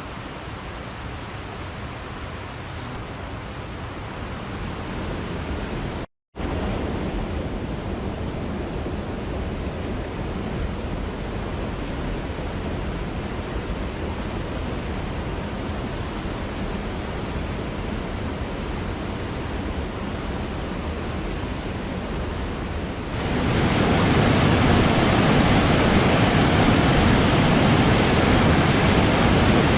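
Steady rush of a mountain waterfall. The sound cuts out for a split second about six seconds in, and about three-quarters of the way through it abruptly becomes much louder and fuller.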